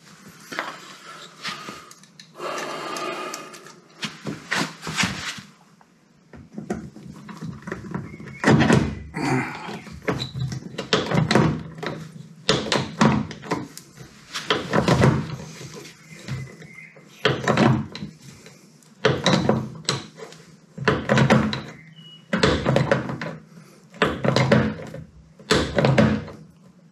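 Hand pop-rivet gun squeezed over and over as it pulls a long, thick rivet through a headlamp bowl's rim, a clunk about once a second from about a third of the way in. These rivets take a lot of effort to pull through.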